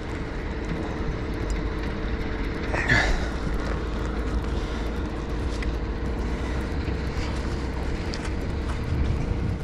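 Steady low engine-like drone with a faint steady hum over it, and one short louder sound about three seconds in.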